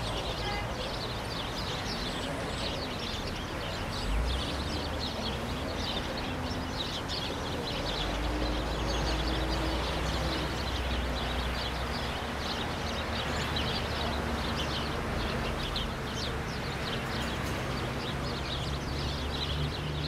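City park ambience: many birds chirping in a dense, continuous stream over the steady rush of a lake's jet fountain, with a low rumble of traffic underneath.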